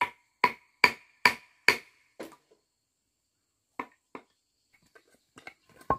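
A hand tool striking wood: five sharp, evenly spaced blows at about two a second, each with a short ring, then a fainter one. Two more blows come about four seconds in, and a few lighter knocks follow near the end.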